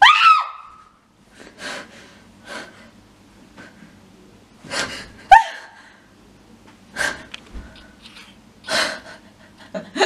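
A woman's sharp gasp, rising in pitch, followed by a few separate heavy breaths, with a second short gasp about five seconds in.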